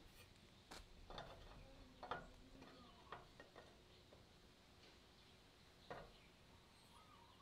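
Near silence, broken by a few light knocks and clicks of aluminum extrusion pieces being handled and set against each other to check a mitred corner joint.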